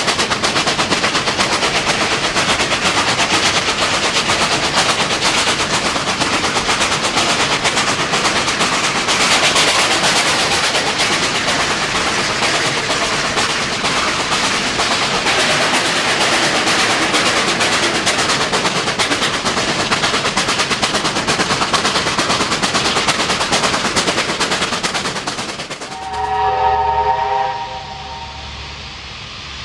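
NSW 38 class steam locomotives working hard: a fast, even stream of exhaust beats mixed with wheel and rail noise. Near the end the sound drops and a steam whistle sounds a chord of several tones for about a second and a half, followed by a low rumble.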